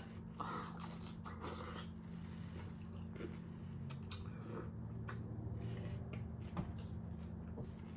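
A person faintly chewing and biting tacos, with scattered small mouth clicks.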